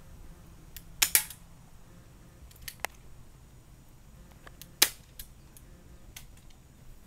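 Sharp mechanical clicks and snaps from an airsoft .38 Special revolver as its hammer is cocked and it is fired. A loud double snap comes about a second in and another loud snap a little before five seconds, with fainter clicks between.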